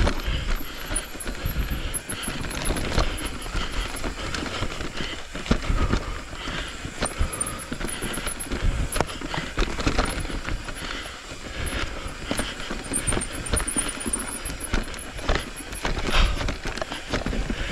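Mountain bike descending a dirt and root forest trail: tyres rolling over the dirt, with irregular knocks, clicks and rattles of the bike as it goes over roots and bumps.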